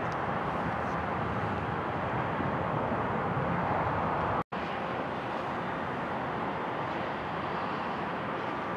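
Steady roar of jet aircraft engines at an airport, with a faint whine. The sound cuts out for an instant about halfway through and then carries on.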